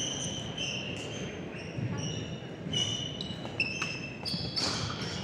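Badminton players' court shoes squeaking on a sports-hall floor: a string of short, high squeaks one after another, over the steady low rumble of a large hall.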